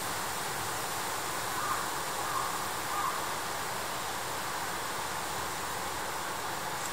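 Steady outdoor background hiss with no distinct event, a few faint brief sounds rising slightly above it about two and three seconds in.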